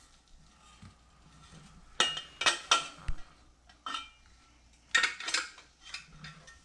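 Hard clicks and clanks, several with a short ringing tone, as the George Foreman grill's pedestal stand pole is knocked and worked against its domed base during assembly. They come in two clusters about a second in from the start and about three seconds later, with a few fainter taps near the end.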